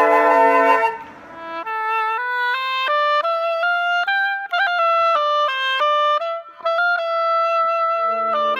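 A few flutes playing in close harmony fade out about a second in. Then a solo oboe plays a quick melody line of short stepping notes, and lower held band chords come in underneath near the end.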